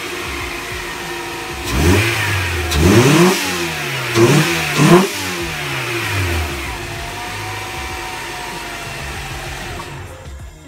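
Honda Prelude 2.2-litre four-cylinder engine, breathing through a freshly fitted AEM cold air intake with an open cone filter, idling and then blipped four times in quick succession about two to five seconds in, each rev rising and falling back, before it settles to a steady idle.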